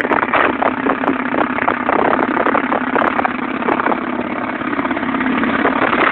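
Self-propelled anti-aircraft gun's autocannon firing one long continuous burst, the rapid shots running together into a loud, steady rattle.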